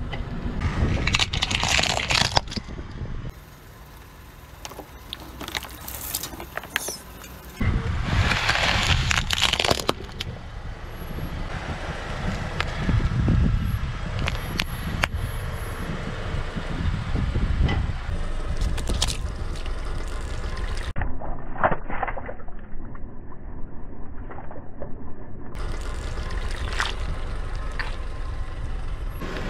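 A car tyre rolling slowly over objects on asphalt and crushing them, with a low vehicle rumble underneath. There are several separate loud bouts of cracking and crunching, and near the end squelching and splashing as a liquid-filled bag of water beads bursts and spills.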